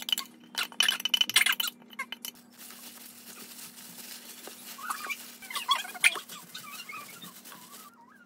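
Green onions being tossed with red chili seasoning by a hand in a plastic glove in a stainless-steel bowl: rustling, wet squishing and clinks, busiest in the first two and a half seconds, then softer with small squeaks.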